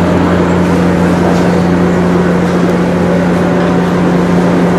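Vessel machinery running with a steady, loud low drone and a constant hum that does not change.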